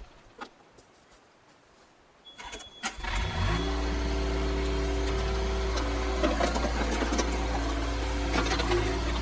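Yanmar B22 mini excavator's diesel engine being started: after a couple of quiet seconds come a few clicks and a short high beep, then the engine catches about three seconds in and settles into a steady run. The audio is played at double speed.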